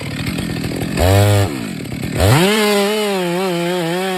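Gasoline chainsaw running rough at low speed, given a short throttle blip about a second in, then revved sharply to full throttle a little after two seconds and held there, its pitch wavering slightly.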